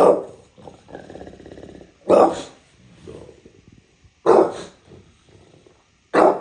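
English bulldog barking: four loud, short barks about two seconds apart, with quieter low grumbling between them.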